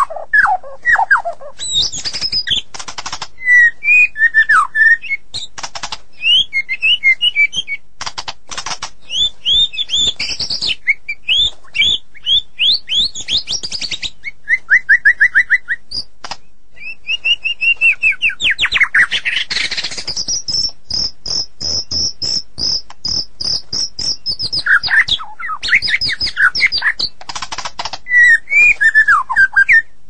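White-rumped shama (murai batu) singing a long, varied song: whistled phrases and fast trills mixed with rapid dry clicking notes, with a high steady trill held for about four seconds past the middle.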